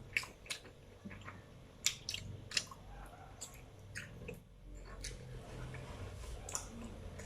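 Close-up chewing of momo dumplings: soft, wet mouth sounds with scattered small clicks.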